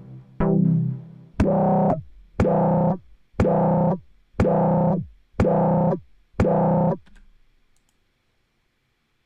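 Software synthesizer notes played back in Logic Pro: one short pitched note repeated seven times, about once a second, each starting with a click and dying away quickly. The notes stop about two seconds before the end.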